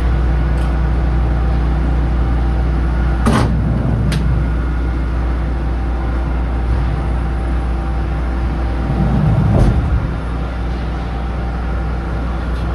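Steady low mechanical hum from a running machine or engine, with a sharp click about three seconds in, another about a second later, and a heavier knock near the end.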